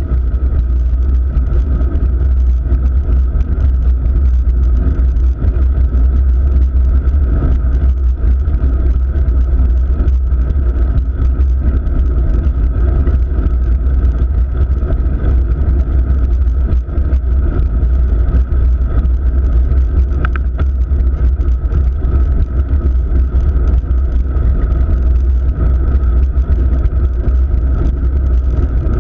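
Steady low rumble of road and wind noise picked up through a handlebar-mounted action camera on a road bike climbing, with a faint brief click about twenty seconds in.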